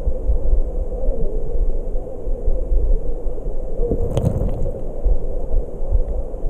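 Stream water rushing past an underwater camera, heard as a steady, muffled low rumble. A single sharp knock comes about four seconds in.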